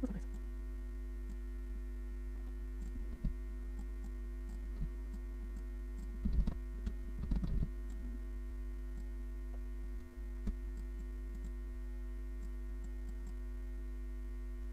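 Steady electrical mains hum on the recording, broken by a few short clicks.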